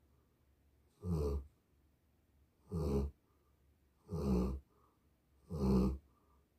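A sleeping dog snoring: four low snores in a steady rhythm, about one every one and a half seconds.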